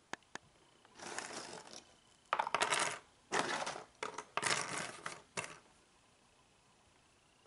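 Loose cardboard jigsaw puzzle pieces clattering into a wooden drawer of a puzzle board in about five short rattling bursts, after a few light clicks.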